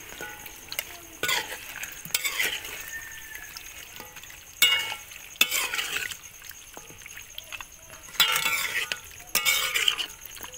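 Steel spoon stirring and scraping chicken curry in a metal pan, with a faint sizzle of the chicken and masala cooking. The scrapes come in irregular strokes a second or two apart and are loudest near the end.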